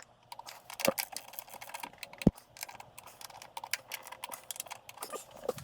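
Scattered light clicks and taps, with one louder knock a little over two seconds in.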